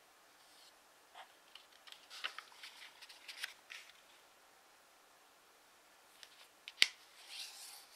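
A sheet of origami paper being folded and creased by hand: a run of small crisp crackles and clicks as the corner is brought over, one sharp tick near the end, then fingers rubbing along the fold to flatten it.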